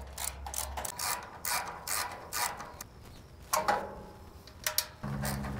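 Screwdriver turning screws out of the sheet-metal side of a flat top grill: a run of short clicks and scrapes, about two a second.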